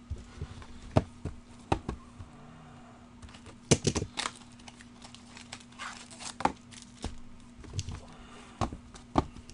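A cardboard trading-card box and its packs being handled and opened: scattered taps and knocks, with short crinkling rustles of packaging about four and six seconds in. A steady low hum runs underneath.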